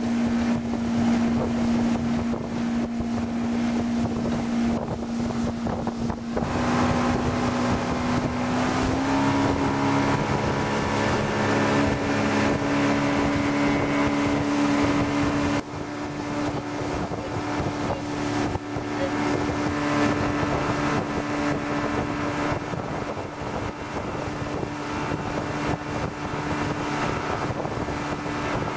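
Motorboat engine running at speed, with water rushing past the hull and wind on the microphone; the engine note climbs slightly about nine seconds in.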